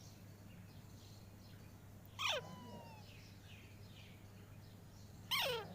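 Pet parrot giving two short, loud calls that drop sharply in pitch, about three seconds apart.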